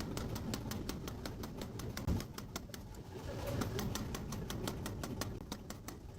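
Mechanical power hammer striking a red-hot steel piece in a rapid, steady train of blows, about six a second, with one heavier thump about two seconds in.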